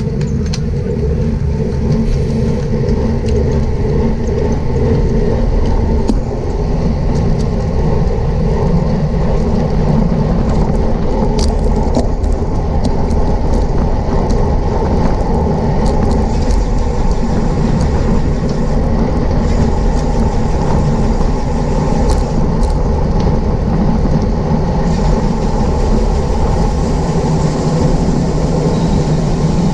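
Steady wind rush on the microphone of a camera riding on a road bike in a bicycle race, with a faint steady hum from the tyres and an occasional light tick.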